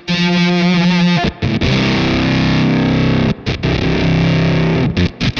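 Electric guitar with Jazzmaster low-output pickups played through a Fender Shields Blender octave-up fuzz pedal, heavily distorted, with its sag control setting the depth of a dying-amplifier effect. A held note wavers in pitch for about a second, then sustained fuzzy chords ring, broken by short cut-outs.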